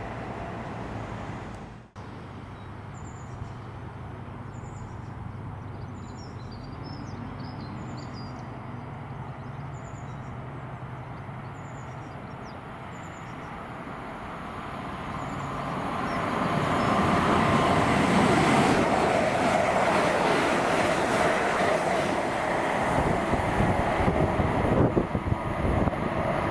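A train on the line: a steady low hum at first, then from about halfway a rumble and rail noise build up and stay loud, with sharp clicks near the end.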